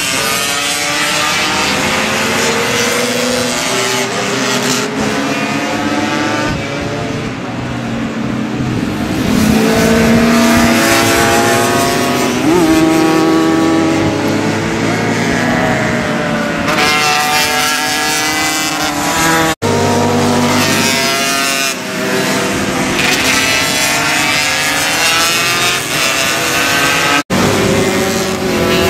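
A group of small racing motorcycles revving hard as they pass, their engine notes overlapping and repeatedly climbing and dropping as the riders shift gears. The sound cuts out for an instant twice in the second half.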